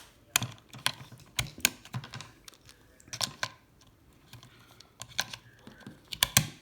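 Irregular sharp plastic clicks and taps: battery adapter casings being handled and pressed into a handheld radio scanner's battery compartment, with a quieter pause in the middle.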